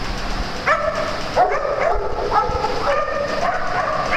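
Dogs barking and yipping in play: a quick run of short barks, about two a second, starting under a second in.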